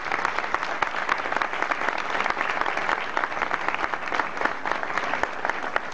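An audience applauding: many hands clapping in a steady, continuous run.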